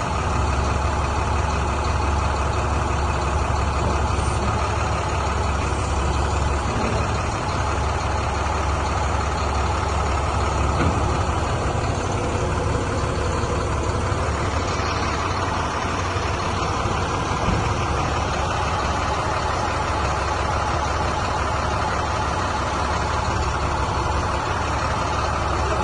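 A 2008 International 7400 grapple truck's diesel engine running steadily, with a strong, constant low hum.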